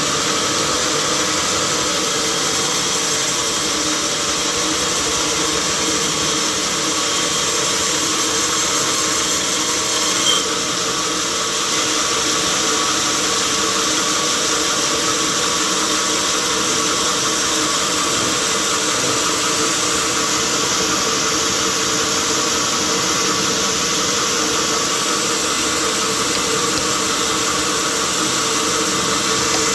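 Sawmill machinery running steadily: a loud, constant mechanical noise with a steady hum, and one short sharp knock about a third of the way through.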